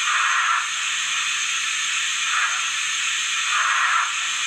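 Zimo sound decoder in a Roco BR52 HO-scale model steam locomotive playing a steady steam hiss through the model's small speaker, thin and without any bass, with a soft chuff swelling out of it every second or two as the locomotive creeps along.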